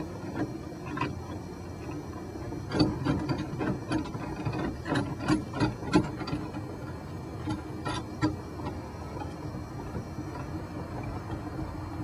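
Small metal clicks and scrapes as a part is worked back onto the end of a 1981 Pontiac Firebird's steering column with a flat metal bar. There is a quick run of clicks through the middle few seconds, over a low steady hum.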